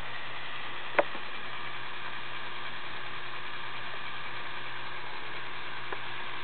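Lego Technic 42055 bucket wheel excavator's electric motor and gear train whirring steadily as the bucket wheel turns, with a sharp click about a second in and a fainter one near the end.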